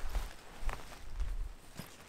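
Handling sounds of a canvas tent being pitched: a wooden pole set under the canvas, with low thuds and two short knocks, the sharper one near the end.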